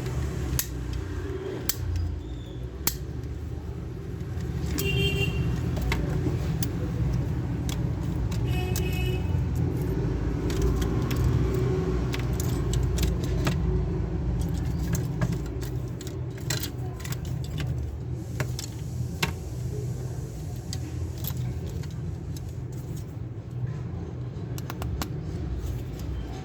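Small parts of a toy gun clicking and rattling as it is handled and taken apart, in scattered sharp clicks over a steady low rumble.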